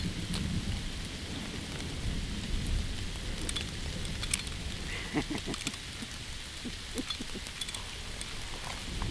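Steady rain falling, with a low rumble underneath and scattered sharp drips and ticks.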